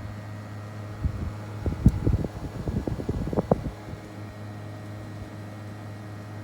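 Mitsubishi Electric MUZ-GV221 air-conditioner outdoor unit running steadily, with a compressor hum and fan noise. Irregular low thumps, like wind buffeting the microphone, come in from about a second in until about halfway through.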